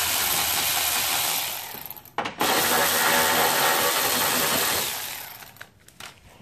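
Cordless power driver running to back out the 10 mm bolts holding the splash cover under the car, in two runs of a few seconds with a short break about two seconds in; it stops about five seconds in.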